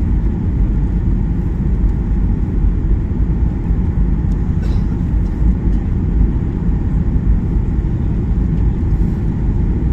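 Steady jet airliner cabin noise, a dense low drone of engines and airflow heard from a window seat, during the descent before landing.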